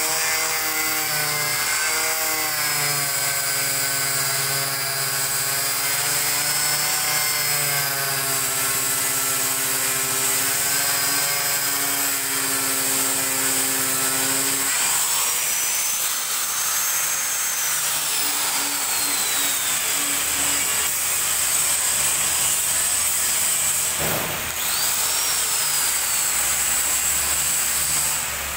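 Handheld electric angle grinder running with its disc grinding along a 5 mm acrylic sheet, the motor's whine wavering in pitch as the load changes. About halfway through the lower tones fade as the load eases, there is a brief dip about 24 s in, and the level drops near the end as the grinder is lifted off.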